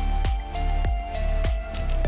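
Background music with a steady kick drum, about one beat every 0.6 seconds, under long held melody notes.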